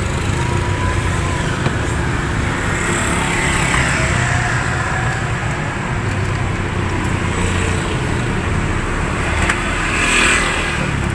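Road traffic going past: a steady rumble of motor vehicles, with passing vehicles swelling and fading and a louder one going by near the end.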